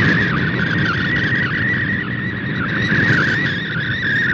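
Shortwave Radiogram MFSK picture transmission received off the air on shortwave: a high, continuously warbling tone as the colour image is sent line by line, over a bed of radio static and noise.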